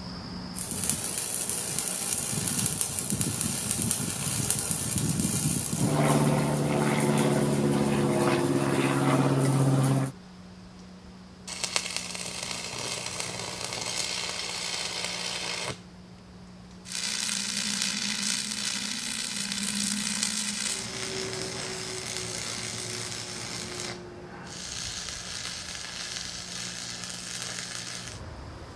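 Arc welding on steel tube with a Lincoln 225 stick welder: a crackling, sizzling arc in several runs separated by short pauses. A humming tone joins the arc for a few seconds in the first run.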